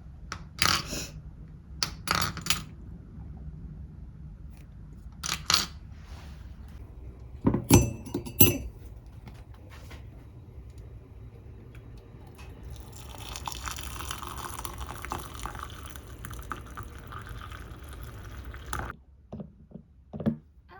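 Glass or ceramic dishes clinking several times, two of the clinks ringing briefly, then liquid pouring or running for about six seconds and stopping abruptly.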